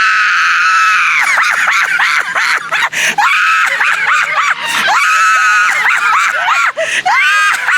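Excited, high-pitched screaming: long held shrieks, a few voices overlapping, with short breaks between them.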